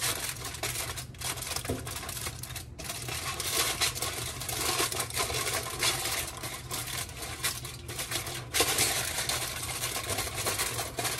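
A pre-cut pop-up aluminium foil sheet crinkling and crackling as it is pressed into an air fryer pan and its edges are smoothed down.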